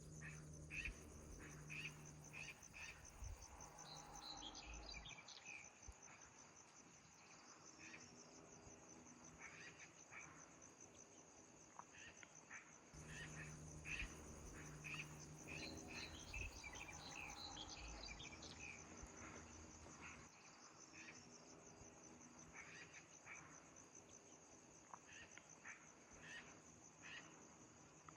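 Crickets trilling in a steady, fast-pulsing high note, with scattered short bird chirps over it; faint overall.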